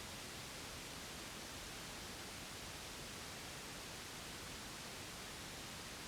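Steady white noise for soothing a baby: an even, unchanging hiss with no breaks.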